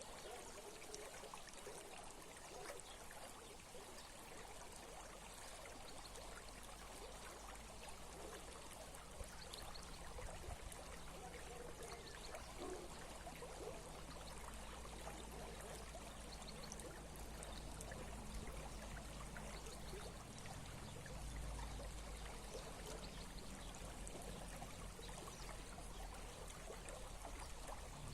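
Small stream running, a steady flow of water, with a low rumble underneath from about five seconds in.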